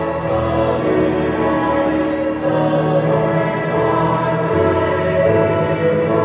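Small four-voice choir of soprano, alto, tenor and bass singing held chords, accompanied on an electronic keyboard.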